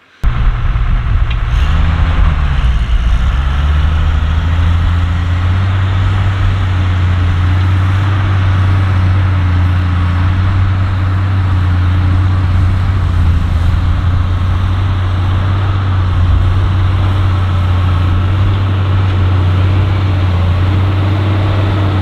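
JCB Fastrac tractor's diesel engine running steadily under load as it pulls a five-furrow reversible plough through the soil. Its note rises a little about two seconds in.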